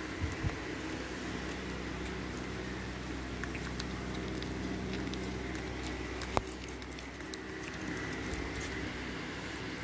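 Glitter slime being squeezed and pulled between fingers, giving a run of small sticky clicks and pops, with one sharper snap about six seconds in.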